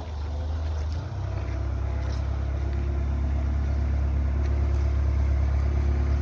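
LPG-fuelled Mazda engine of a Hyster forklift running steadily. It dips briefly about a second in, then picks up and grows gradually louder.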